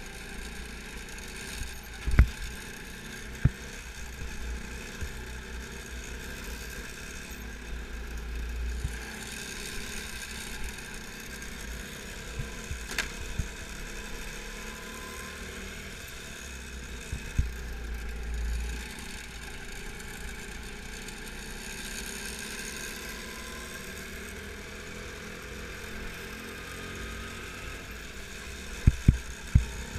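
Go-kart engine running steadily while driving on track, heard from on board the kart, with a few sharp knocks about two seconds in and a cluster of knocks near the end.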